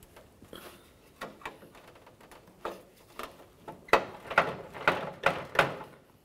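Clicks and knocks of plastic grille parts as a twist-lock grille retaining tab is turned and worked free with a socket extension: faint taps at first, then a quick run of about five sharp clicks about four seconds in.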